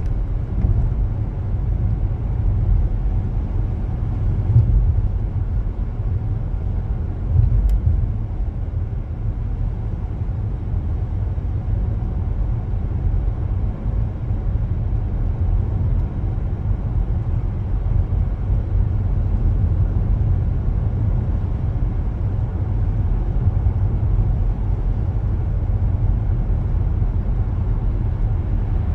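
A car driving, heard as a steady low rumble of road and engine noise with no sudden changes.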